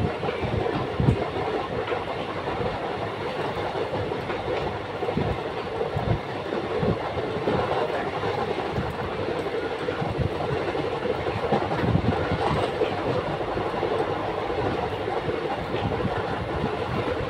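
Moving train heard from inside the carriage: a steady running rumble with irregular knocks and clacks of the wheels over the track.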